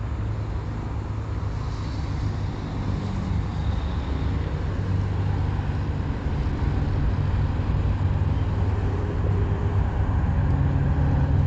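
Low, steady rumble of a motor vehicle engine, building slowly and growing louder near the end.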